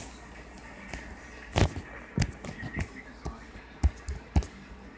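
A handful of sharp, irregularly spaced taps or knocks over a low steady background hum.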